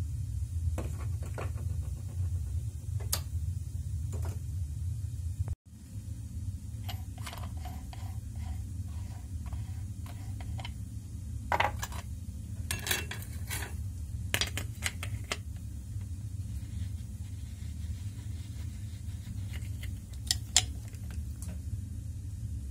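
Scattered metal clicks and clinks of a two-pin flange spanner, flange nut and discs being handled while an angle grinder's disc is swapped, over a steady low hum. The clicks come thickest in the middle stretch, with a few sharper clinks.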